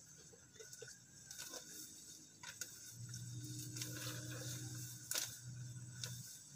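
Grass and weeds being pulled up by hand: rustling leaves with a string of sharp snaps and tearing as stems and roots give way. A low steady hum runs underneath from about halfway to near the end.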